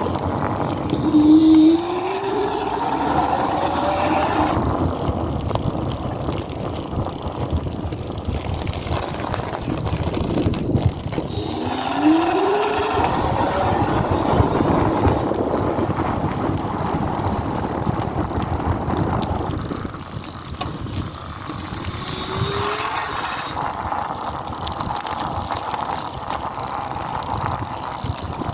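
Electric hub motor running with a grinding noise. Its whine rises in pitch three times as it speeds up, over a steady rough noise.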